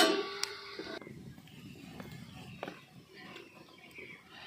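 Steel lid plate set down inside a stainless-steel steamer pot rings out and fades within the first second. Then come faint ticks and crackles of a wood fire burning in a clay stove.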